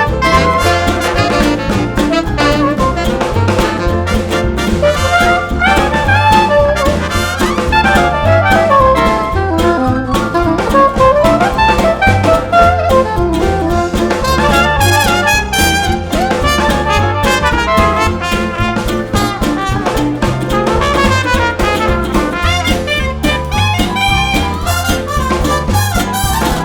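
Background music: an upbeat jazz tune with brass and saxophone over drums and a steady beat.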